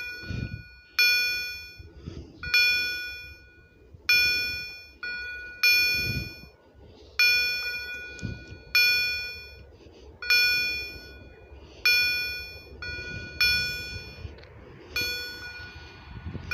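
Railroad level-crossing warning bell striking steadily, one ringing stroke about every one and a half seconds. The crossing is activated for an approaching train.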